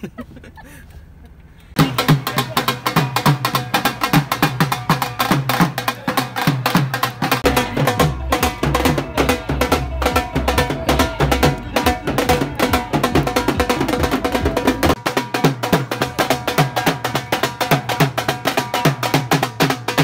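A couple of seconds of quiet car-cabin noise, then loud, fast percussion-heavy music starts abruptly. Dense drum and wood-block-like strokes run under steady melodic tones, with a deep bass layer in the middle.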